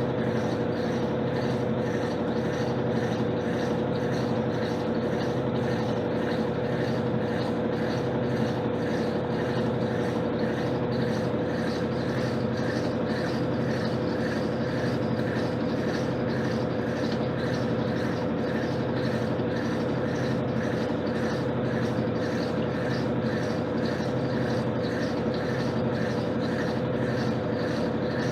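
Electrolux LTC10 top-loading washing machine running steadily at the end of its jeans cycle, most likely the final spin: a constant motor hum with an even, quick pulsing from the turning drum.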